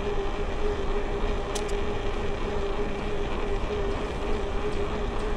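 Steady rumble and hiss of a vehicle in motion, with a constant hum.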